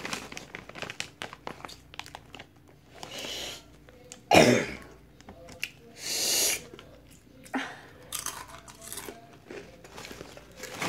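Crunching and chewing of Takis Fuego rolled tortilla chips close to the microphone, with a loud cough about four seconds in and two short hissing sounds around three and six seconds in.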